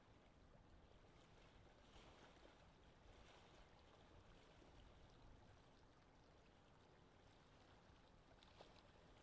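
Near silence: a faint steady hiss of background noise.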